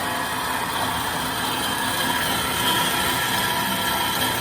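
Steady mechanical running noise with several held tones over an even rushing haze, unchanging in level.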